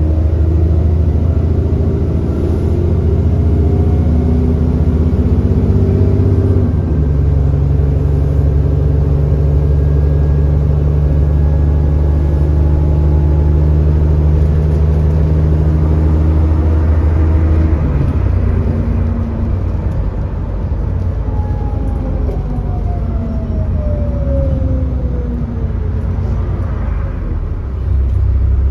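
Cummins ISB 6.7-litre diesel engine of an Alexander Dennis Enviro400 bus pulling with a steady drone, on a bus with an exhaust leak. The note shifts about 7 seconds in, drops about 18 seconds in as the engine backs off, and a falling whine follows.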